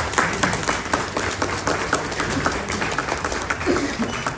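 A crowd applauding, with many overlapping hand claps running continuously.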